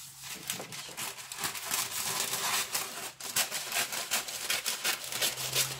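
Baking paper rustling and crinkling in quick, dense crackles as it is handled and pulled straight.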